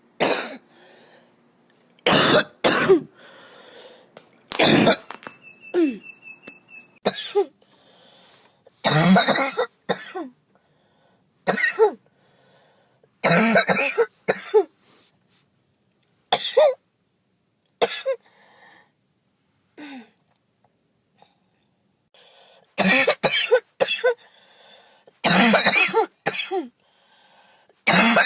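A person with a chest cold giving harsh, chesty coughs: single coughs and short fits with quiet gaps between, coming thicker and faster near the end.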